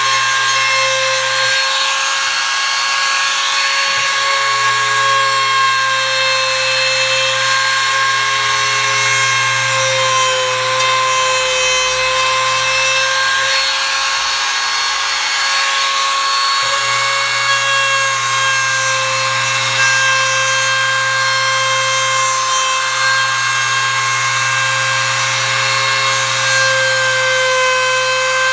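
Compact electric trim router running at a steady high whine as its bit carves decorative grooves into a wooden table leg, with a rasping hiss of wood being cut. The deeper hum of the cutting load drops away twice for a few seconds while the bit is lifted off the wood, then returns.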